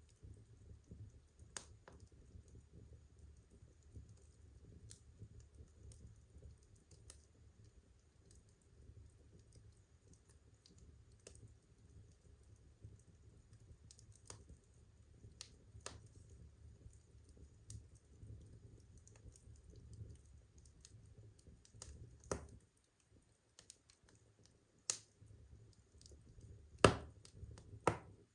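Burning firewood crackling: irregular sharp pops and snaps, a few louder ones near the end, over a low steady rumble that drops away a little past two-thirds of the way in.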